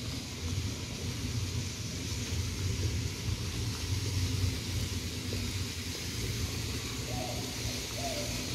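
Steady outdoor background: a low, wavering rumble under an even hiss, with no distinct event.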